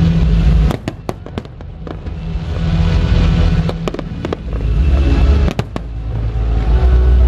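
Aerial fireworks shells bursting: a run of sharp bangs about a second in and another cluster near six seconds, over a deep low rumble of booms.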